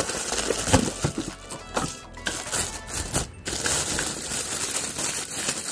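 Clear plastic wrapping crinkling and rustling as a five-socket lamp holder is handled and pulled out of its cardboard box, with many irregular crackles, over background music.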